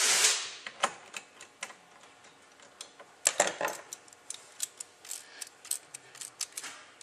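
Irregular metallic clicks and ticks of spray-gun parts and hand tools as the trigger stud and screw are fitted back onto a Lynx 100C spray gun. A louder scraping rattle comes right at the start and another about three seconds in.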